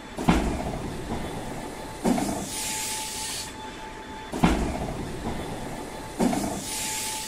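Airbus A320 hydraulic system working the flaps as they extend: four thumps about two seconds apart, each with a short growl, and bursts of hissing after the second and the fourth.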